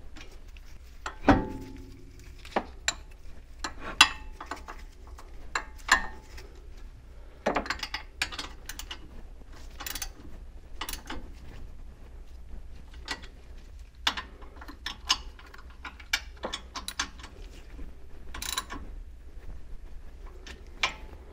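Ratchet wrench clicking and hand tools knocking on metal in scattered bursts as the brake caliper's mounting bolts are tightened, with a few sharper knocks, the loudest about a second in and ringing briefly.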